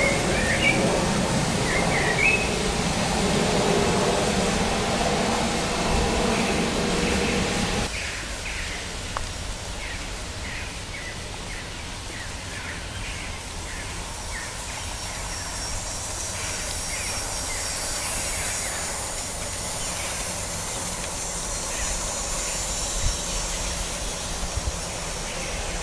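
A Gauge 0 model train, an LMS Jubilee locomotive with its coaches, running along garden track with a steady rolling rumble. The rumble drops suddenly about eight seconds in, and birds chirp over it.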